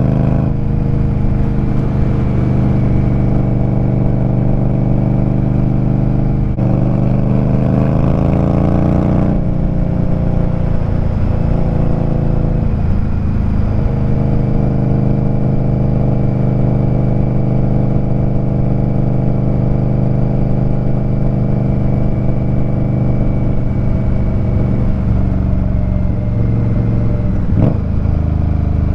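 Indian Scout Rogue's V-twin running through short GP Shorty exhausts while riding. The engine note holds steady, climbs in pitch between about six and nine seconds in, then drops back and settles into a steady cruise.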